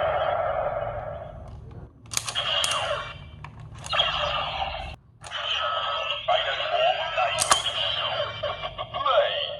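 Toy Kamen Rider Decade transformation belt (Decadriver replica) playing its electronic sound effects and voice audio through its small built-in speaker, with several sharp plastic clicks as its mechanism is worked.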